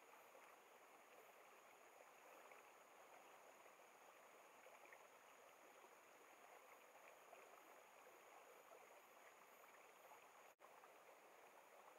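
Near silence: the faint, steady rush of a mountain stream, briefly cutting out near the end.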